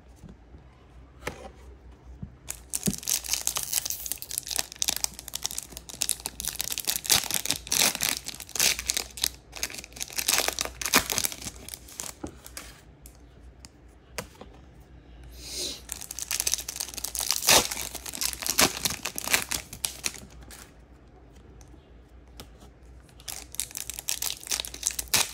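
2022 Topps Chrome trading-card pack wrappers crinkling and tearing as packs are ripped open and handled. The rustling comes in three long stretches with short quiet pauses between them.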